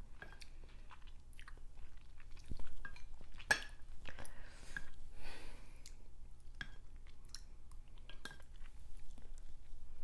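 Close-miked chewing and wet mouth sounds of someone eating a seafood boil, with scattered sharp clicks and smacks.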